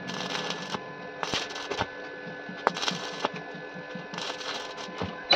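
Arc welding with a stick electrode on a mild-steel window frame: the arc crackles in short irregular bursts with sharp pops, stopping and starting several times, over a faint steady hum.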